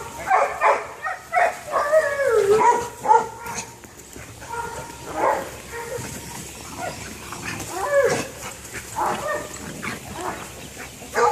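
Dogs barking and whining during rough play, in short pitched calls that bend up and down. The calls come thickly in the first few seconds, then more sparsely.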